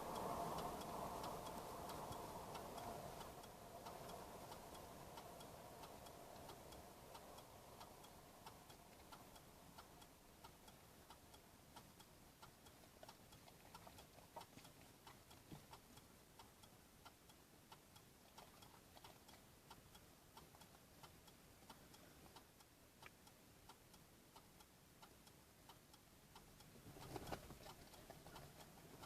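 Near silence: faint, irregular small clicks scattered throughout, with the tail of fading music at the start and a short soft rustle near the end.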